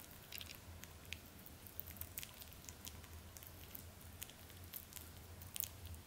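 Netherland Dwarf rabbit chewing soft banana: quiet, irregular small wet clicks and squishes of its mouth and teeth.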